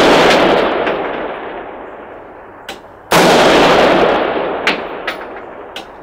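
A rifle shot about three seconds in, its report rolling away in a long echo that fades over the next few seconds, after the fading echo of a shot fired just before. A few faint sharp cracks sound in between.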